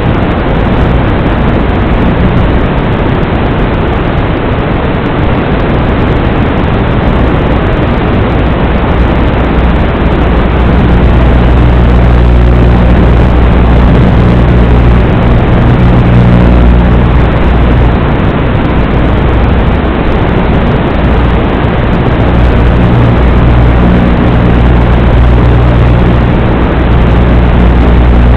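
Small FPV quadcopter in flight, heard as a loud steady rushing noise with a low hum that grows stronger partway through.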